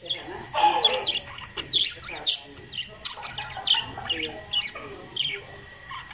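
Several parakeets chirping and chattering, many short high chirps overlapping one another with a lower warbling note now and then.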